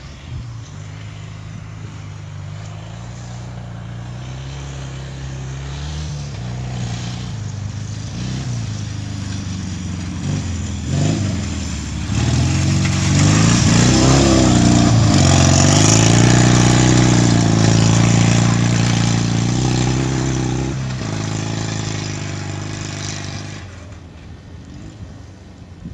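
Ural sidecar motorcycle's flat-twin engine, running on Keihin 40 CVK carburetors, growing louder as the bike approaches. It passes close about halfway through, its note rising and falling with the revs, then fades as it rides away.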